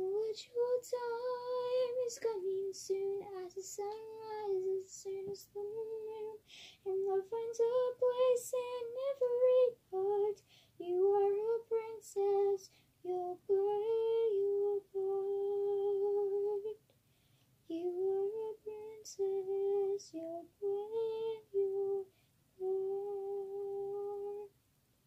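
A female voice singing a slow melody without accompaniment, in sung phrases of mostly held notes with short breaks between them. The singing stops just before the end.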